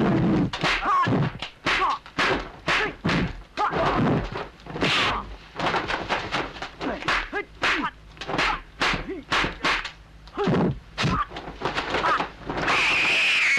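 Kung fu film fight sound effects: a rapid, irregular string of dubbed punch and kick impacts, thuds and whacks about two or three a second, mixed with short shouts and grunts from the fighters. Near the end a long, high, cat-like screech begins.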